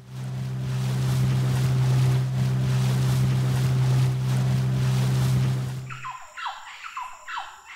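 Small motorboat's outboard motor running steadily at speed across open water, cutting off suddenly about six seconds in. A run of short falling whistles follows over a high steady trill.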